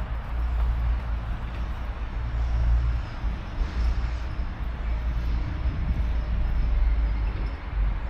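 Outdoor background noise dominated by a heavy, fluttering low rumble, with an even hiss above it.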